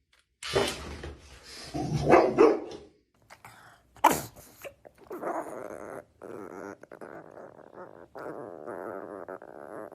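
A dog barking and growling, with a sharp loud burst about four seconds in and steadier, continuous growling through the second half.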